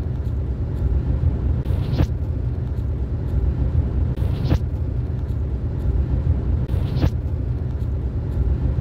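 Steady low rumble of a moving vehicle on the road. A short swish ending in a click comes back about every two and a half seconds.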